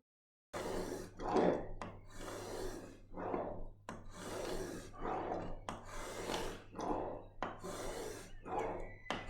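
Repeated rasping strokes of hand work on Victorian ash hardwood, about one stroke a second, over a steady low hum.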